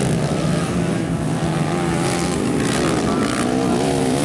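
Several dirt bike engines revving as the bikes race past, their pitches overlapping and wavering up and down with the throttle.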